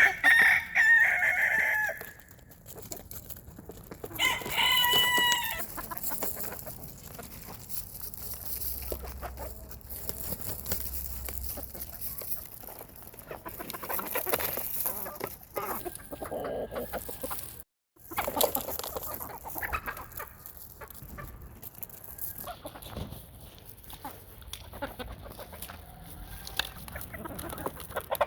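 Hybrid rooster (Pakistani sire, local baladi hen) crowing twice near the start, followed by softer clucking from the chickens, with a brief cut to silence a little past halfway.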